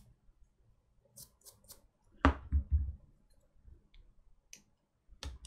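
Scattered small clicks and taps of a ribbon cable and its connector being handled and fitted onto a MacBook Air logic board, with one sharper click a little past two seconds in and a couple of softer ones after it.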